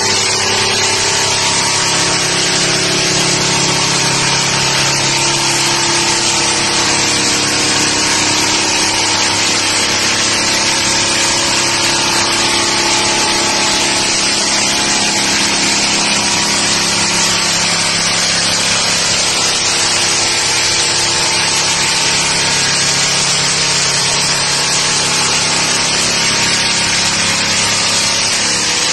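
Heavy-duty SH300-series electric drum floor sander running steadily, its 300 mm abrasive drum grinding the old finish off a wooden plank floor. A dense, even sanding hiss sits over the steady hum of the motor.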